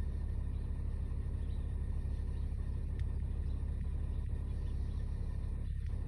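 Steady low rumble of a car engine idling, heard from inside the car.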